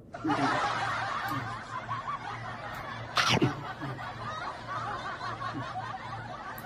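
Laughter, as of several people snickering and chuckling, starting abruptly, with one sharp falling sound about three seconds in.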